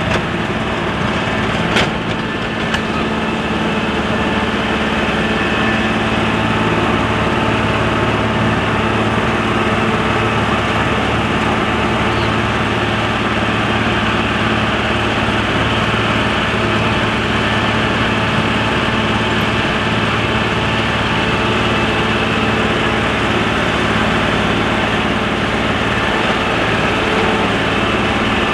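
Green utility tractor's engine running steadily at a constant low speed as it drives along a gravel farm track.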